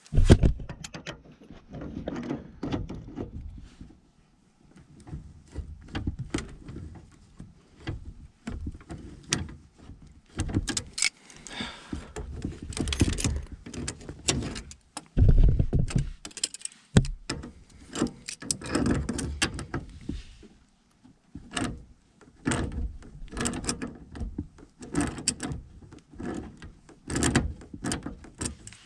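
Hand work on a furnace's gas piping and metal parts, with irregular clanks, clicks, scrapes and rattles of tools and fittings, and a heavier thump about halfway through.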